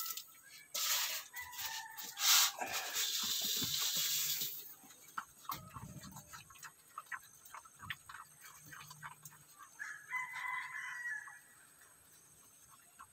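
A rooster crows loudly about a second in and again more faintly near ten seconds in, over piglets chewing and crunching pellet feed with many small clicks.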